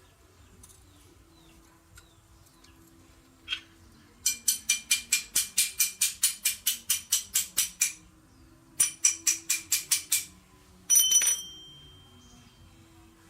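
Rapid metal-on-metal tapping, about five ringing strikes a second, in two runs. It ends in one louder metallic clang that rings on briefly.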